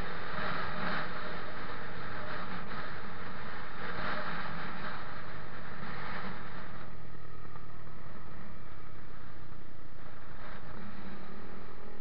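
Motorcycle engine running on the road under heavy wind rush over the microphone. About seven seconds in the rushing eases and the engine note drops back as the bike slows for a stop junction.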